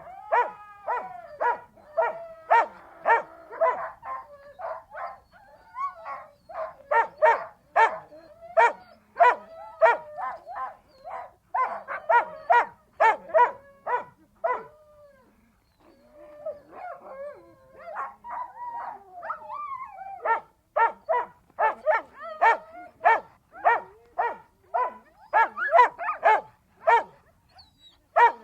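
Siberian husky barking over and over, about two barks a second, mixed with wavering whines and howl-like cries near the start and again past the middle, with a short pause about halfway through.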